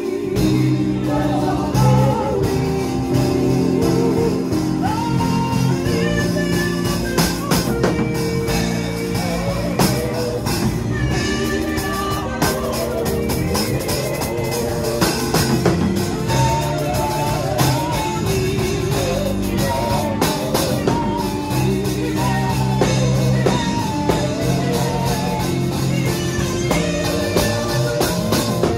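A woman singing a worship song into a microphone with a wavering, sustained voice, backed by live keyboard chords and a steady percussion beat.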